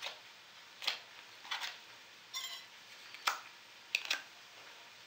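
Table knife scraping and tapping against a plastic tray and a glass bowl as Roquefort cheese is crumbled into chopped endive: a string of sharp clicks and short scrapes, with a brief ringing tone about two and a half seconds in.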